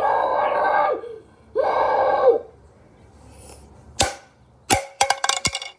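Two short wordless vocal sounds from a child, each under a second. Then a sharp click about four seconds in and a quick run of clicks and knocks near the end, from a hand handling the recording phone.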